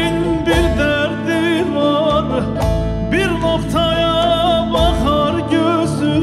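Turkish folk (türkü) ensemble music led by a plucked bağlama (saz), with a wavering, vibrato melody line on top and a deep drum beat about every two seconds.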